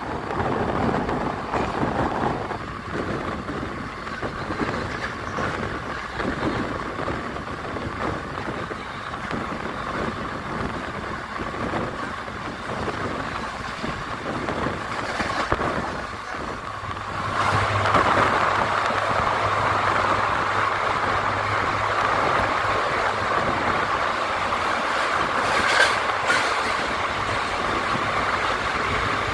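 Passenger train running along the track with a steady rumble and rattle of the coach. The noise grows louder about two-thirds of the way in, and there is one sharp click near the end.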